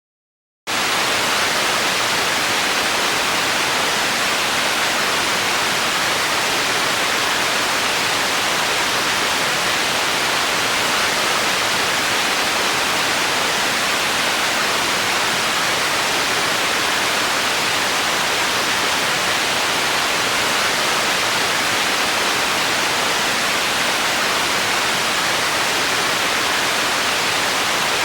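Television tuned to no channel, giving out a steady hiss of static. It cuts in suddenly about half a second in and stays even.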